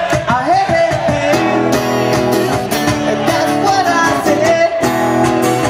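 Live acoustic guitar strummed with a man singing: wavering held sung notes for the first second or so, then steady strummed chords with the voice coming back only briefly.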